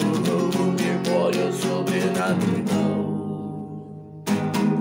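Acoustic guitar strummed: a run of quick strummed chords, a chord left ringing and fading from about three seconds in, then two fresh strums near the end.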